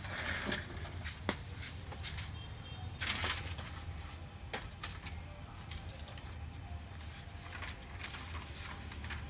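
Steady low hum with scattered light clicks and a brief rustle of paper being handled about three seconds in.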